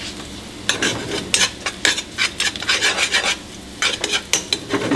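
Fried potato cubes with chopped onion and garlic sizzling in a steel frying pan, stirred with a run of quick, irregular scraping strokes against the pan from about a second in.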